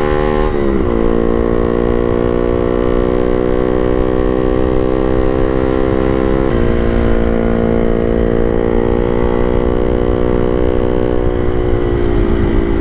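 Honda Sonic 150R's single-cylinder engine running under way, with the engine note dropping sharply about half a second in at a gear change and shifting again about halfway through. Wind rumbles on the microphone throughout.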